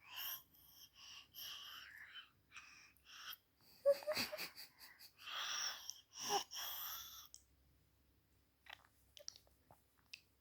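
A baby coughing: a run of short noisy breaths, then several harder coughs in the middle.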